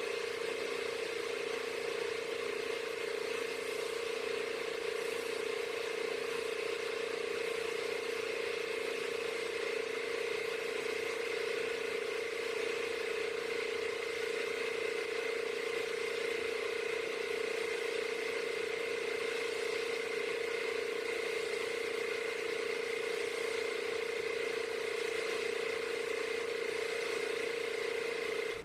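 A machine running steadily at constant speed, with an unchanging whine.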